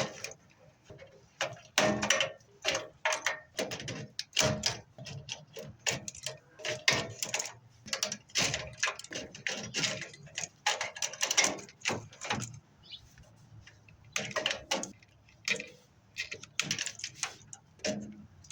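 Irregular metallic clicks, clanks and rattles of hand tools and parts being worked loose from a furnace's sheet-metal cabinet, with a short lull about two-thirds through.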